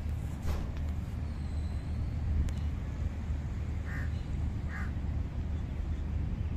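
Domestic ducks give two short quacks, about four and five seconds in, over a steady low rumble.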